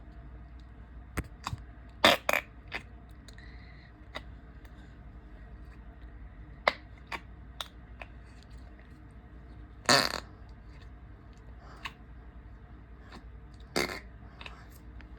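Short fart noises and sharp clicks at irregular intervals. The longest and loudest comes about ten seconds in, with others around two seconds and near the end.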